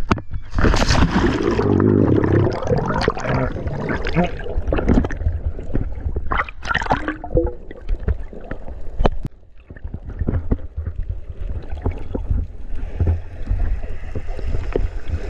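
Sea water splashing and gurgling over an action camera as it dips through the surface, loudest in the first few seconds and again briefly midway. After that comes the muffled rumble and scattered clicks of the camera underwater.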